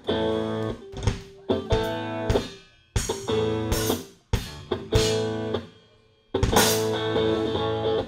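A live rock band, with electric guitars, bass guitar and drum kit, opens a song with a series of loud accented hits that each ring out and fade. Then the full band plays steadily from about six and a half seconds in.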